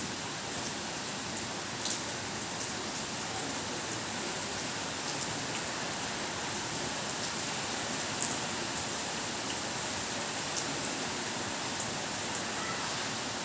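Rain pouring steadily, a dense even hiss with scattered sharp ticks of single drops striking.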